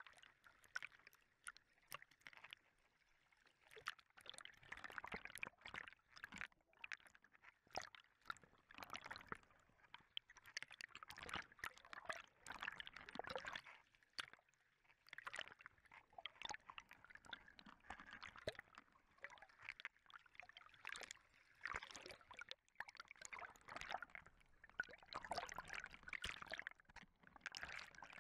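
Quiet river water sloshing and splashing against a camera held at the waterline, with many sharp, irregular slaps and clicks of water hitting the camera.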